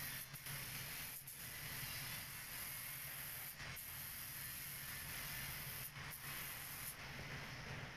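Compressed-air paint spray gun hissing as it sprays, in long stretches broken by a few short pauses, stopping about seven seconds in. A low steady hum runs underneath.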